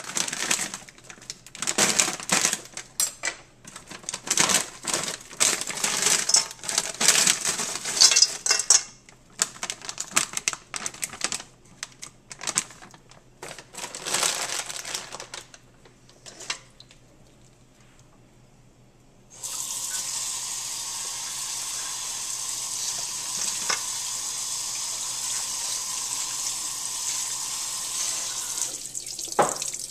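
Pieces of frozen broccoli clatter into a perforated stainless steel colander in dense hard rattles. The rattles thin out and stop a little past halfway. After a short pause, a kitchen tap runs steadily into the colander, rinsing the broccoli, until near the end.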